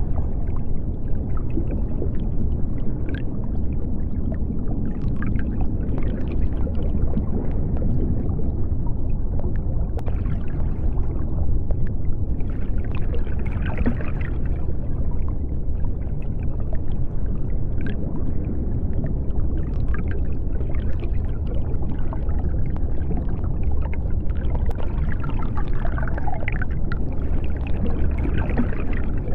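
Underwater sea ambience: a steady deep rumble with scattered brief, higher crackles throughout.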